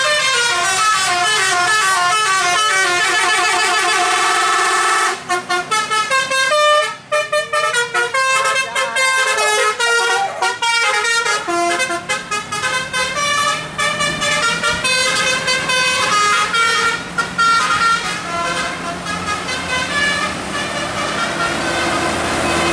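Indonesian bus "telolet" musical horn playing a melody: for about five seconds it holds notes that step up and down, then it plays rapid, choppy notes for most of the rest. Near the end it gives way to traffic noise.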